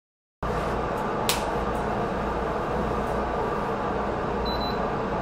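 Steady whir of bench test instruments' cooling fans with a low hum. A single sharp click comes about a second in as the bench power supply is switched on, and a short high beep from the supply follows near the end.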